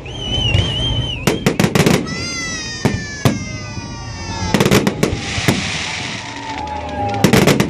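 Fireworks salute: rapid sharp bangs of bursting shells come in volleys, clustered near the start and again near the end. A wavering high whistle and a long falling tone sound between them, and there is a crackling hiss from about five seconds in.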